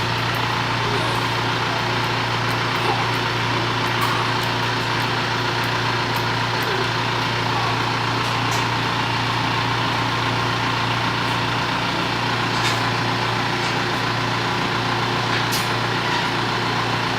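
Steady, unvarying engine-like hum with a noisy hiss over it and a few faint clicks.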